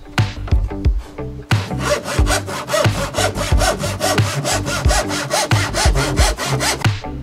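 A handsaw cuts through a thin wooden board in quick, even strokes. It starts about a second and a half in and stops just before the end. Plucked background music plays under it.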